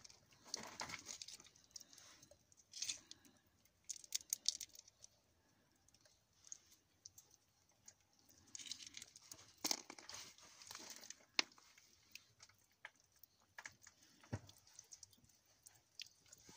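Faint crunching, scraping and clicking as fingers pick through wet gritty sediment and small round mineral pearls, in irregular bursts with quiet gaps between.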